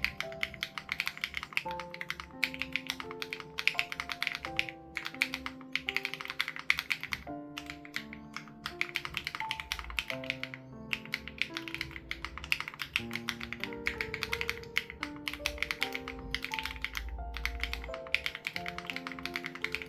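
Fast typing on an SPM AL87B mechanical keyboard with BSUN Raw switches and its sound-dampening foam removed: a dense run of key clacks with a few brief pauses. Soft background music with held notes plays beneath.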